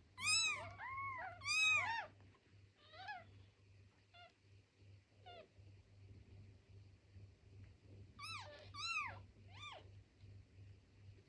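Two-day-old newborn kittens mewing: a quick run of high, arching mews in the first two seconds, a few fainter ones in the middle, and another cluster of several mews near the end.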